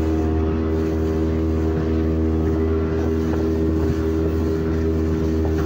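Motorboat engine running at a steady speed while the boat is under way, an even hum that holds without change.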